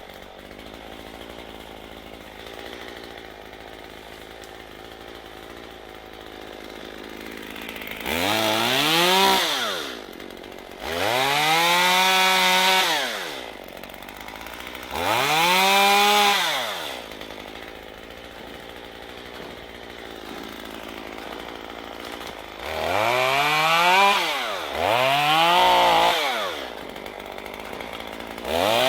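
A two-stroke chainsaw idling, then revved to full throttle about six times, each rev rising quickly in pitch, holding for a second or two and dropping back to idle.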